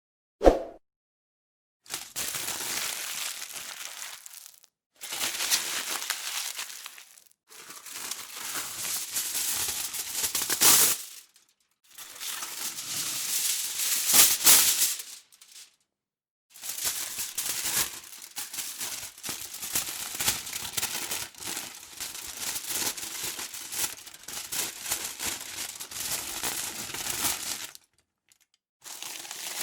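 Aluminium foil being crumpled and crinkled in repeated bouts of a few seconds each, with short pauses between them and one long stretch in the second half. A single sharp click comes just before the first bout.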